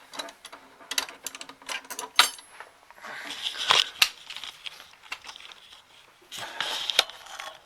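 Screwdriver and loose nut working a chassis bolt on an amplifier. It starts with a run of sharp metal clicks, then scraping, rattling handling noise about three seconds in and again near the end.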